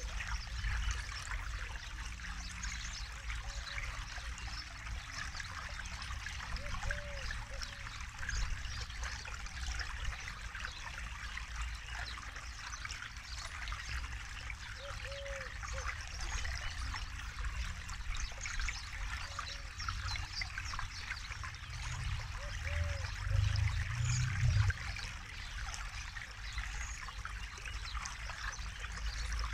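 Forest river flowing steadily over stones, a continuous trickling rush of water. A low rumble swells for a few seconds near the end, and a short low call recurs about every seven or eight seconds.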